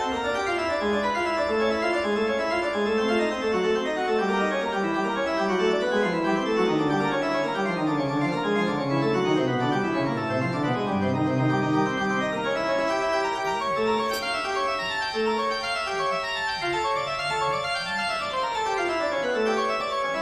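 Organ music: quick runs of many notes, with a fast descending run near the end.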